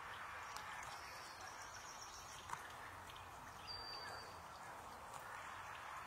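Faint steady splashing of a small backyard fountain jet, with two brief thin high tones, one about a second in and one near four seconds, and a few faint ticks.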